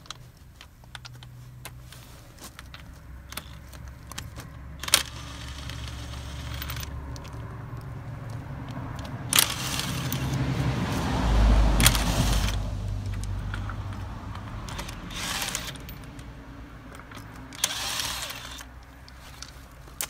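Cordless impact gun spinning out a van's wheel bolts: one long run of several seconds about halfway through and shorter runs near the end, with metal clinks of bolts and tools being handled.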